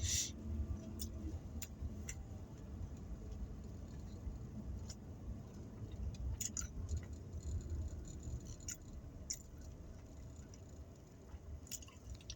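Low steady rumble inside a car, with scattered soft clicks and ticks at irregular intervals.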